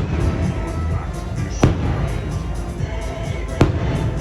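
Fireworks bursting, three sharp bangs about two seconds apart, over the show's music soundtrack.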